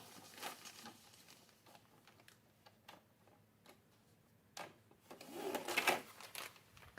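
Faint clicks and handling of plastic vacuum-sealer bag, then a louder rasp lasting about a second, about five seconds in, as the sealer's slide cutter cuts a length of bag from the roll.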